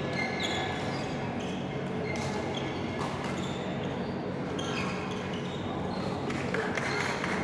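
Badminton play on an indoor court: repeated sharp racket strikes on the shuttlecock and brief shoe squeaks on the court floor, over a steady low hum in a large hall.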